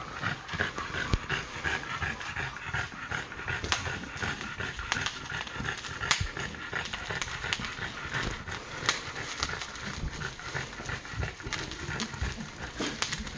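A dog panting steadily, with sharp crinkles and clicks from a plastic bubble-wrap bag being handled and wrapped.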